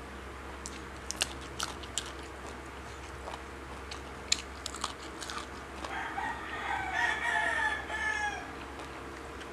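Close-up crunching and clicking of someone chewing and handling raw vegetables, then a rooster crowing once, starting about six seconds in and lasting about two and a half seconds, ending on a falling note.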